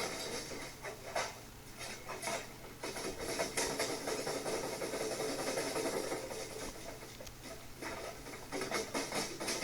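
Washing machine shaking violently with a brick loose in its drum, the brick and cabinet knocking and rattling irregularly.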